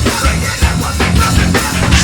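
Live heavy metal band playing loud: distorted electric guitars and bass over a driving drum kit.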